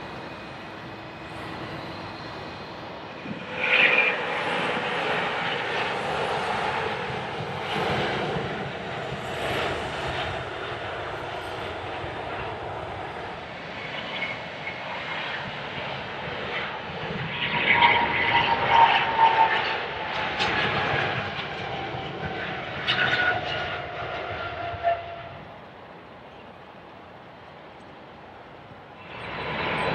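Jet engines of large airliners (Boeing 747-400, 777-200LR and 787-8) running at high power on the runway as they depart, a steady roar with a falling whine in the middle. The level jumps abruptly a few times where separate clips are joined.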